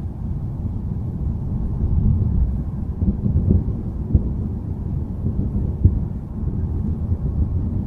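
Low, continuous rumble of distant thunder, swelling slightly a couple of seconds in, with two brief sharp knocks about four and six seconds in.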